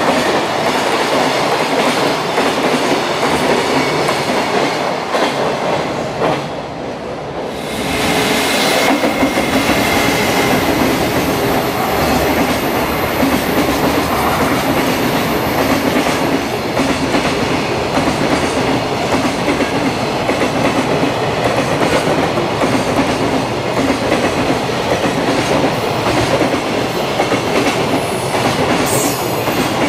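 Freight trains of container flatcars passing close by at speed, wheels clattering over the rails in a continuous rumble. The sound dips briefly about seven seconds in, then comes back as another long container train runs past.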